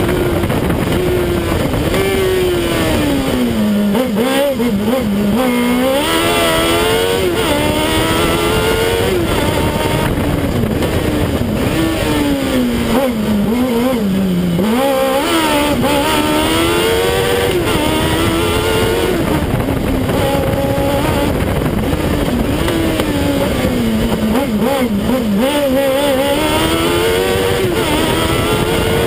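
Fiat 500 race car's Kawasaki ZX-12R inline-four motorcycle engine running hard, heard from a camera on the car's flank. Its revs rise and fall over and over, dropping deeply a few times, as the car is driven through slalom turns.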